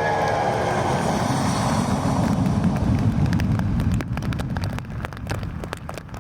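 Jet airliner engine noise: a heavy, steady rumble that drops away about four seconds in, leaving a fainter rumble with scattered crackling clicks.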